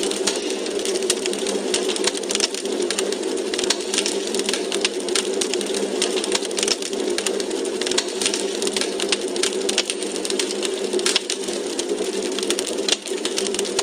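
Wood fire burning in a fireplace: a steady rushing hiss with many irregular sharp crackles and pops of burning logs.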